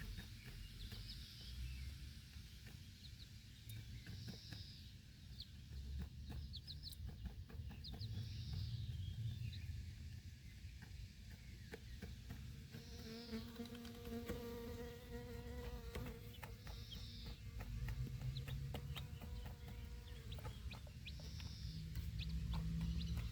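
Baby chicks peeping in short high calls every few seconds, with small clicks of pecking, and a fly buzzing past for about three seconds in the middle. A low rumble of wind runs underneath.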